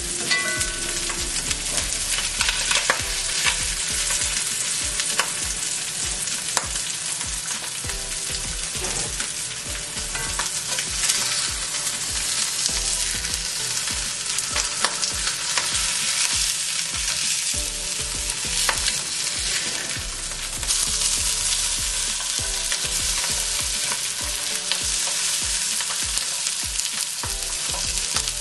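Salmon fillets searing in an uncoated frying pan: a steady sizzle of hot oil with fine crackling spatter, growing louder about two-thirds of the way through.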